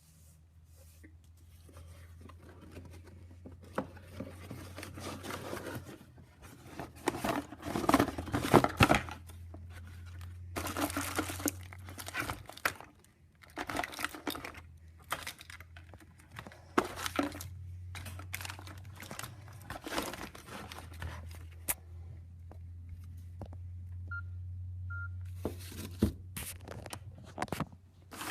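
A mobile phone being handled and worked on by hand: irregular rustling, scraping and clicks over a steady low hum, with two short beeps near the end.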